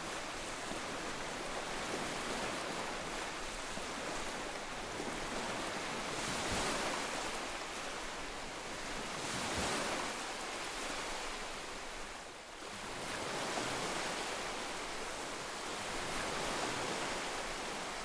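Ocean surf washing over rocks: a steady rush of water that swells and ebbs every few seconds, with a brief lull about two-thirds of the way through.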